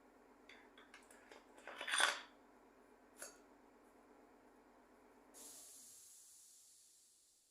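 Parts and tools being handled on an opened automatic transmission: a few light metallic clicks, a louder scrape about two seconds in and another click, over a steady low hum. Near the end a high hiss starts suddenly and fades away.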